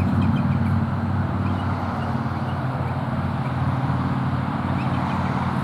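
Bald eagles calling in faint, short, high chirps, a few scattered notes, over a steady low hum that eases off slightly in the first second or so.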